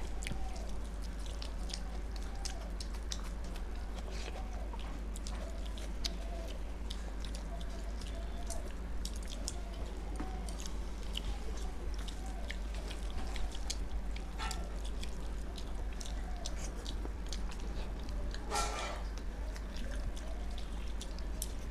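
Close-miked eating sounds: chewing, lip smacks and the squish of rice and dal being mixed by hand, a steady scatter of small wet clicks over a steady low hum. One brief louder mouth sound comes near the end.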